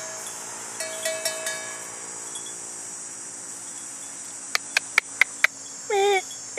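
Water buffalo giving a short, high squeak near the end, with wooden neck bells clonking about a second in and five sharp clicks shortly before the squeak. Insects buzz steadily behind.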